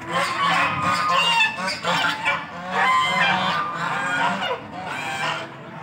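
A flock of white domestic geese honking, many calls overlapping one another without a break.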